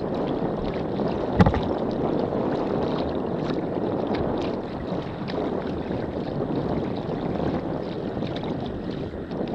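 Choppy water sloshing and splashing steadily around a kayak under sail, with scattered small slaps and one sharper slap about one and a half seconds in.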